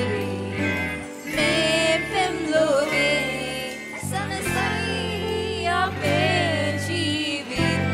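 A song: a solo voice singing with a wavering vibrato over sustained instrumental accompaniment.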